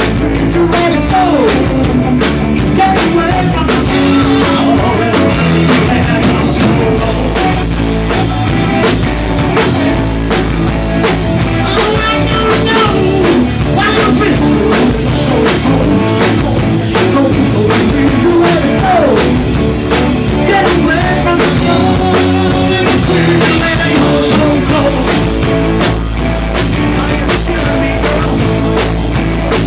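Live rock band playing a song, with drum kit and guitar, loud and continuous.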